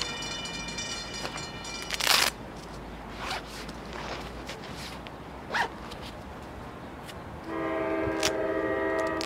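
Horn of an approaching NJ Transit train, a steady chord. It stops about two seconds in, then sounds again, louder, for under two seconds near the end, as a train blows for a grade crossing. A few brief rustles fall in between, the loudest just as the first horn stops.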